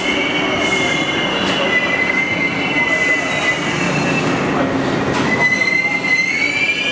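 R62A subway train pulling into the station, with a loud, high-pitched steady squeal from its wheels and brakes as it slows. The pitch rises a little near the end.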